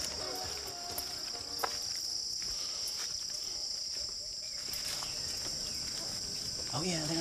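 Steady high-pitched drone of forest insects, with a few faint clicks and a brief voice near the end.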